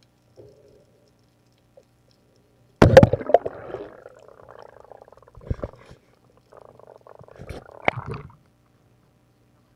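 Underwater sounds heard through a camera housing on a night dive: a sudden loud clack about three seconds in, followed by knocking and rustling. Near the end come thuds and splashing as the camera breaks the water's surface.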